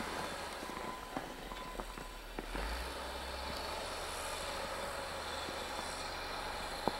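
Steady low mechanical rumble, like a vehicle or machine engine running, with a few short clicks.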